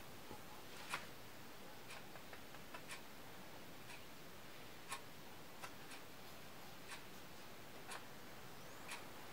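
A clock ticking faintly, about once a second, with a few softer clicks in between.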